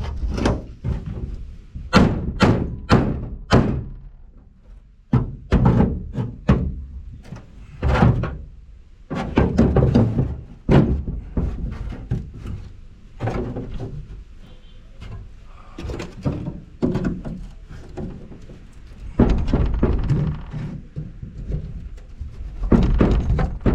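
Repeated heavy thuds and knocks in irregular clusters, from the old rotten plywood transom board being banged and worked loose from the jon boat's hull. It is stuck on a bolt that the owner thinks bent when he tried to break it.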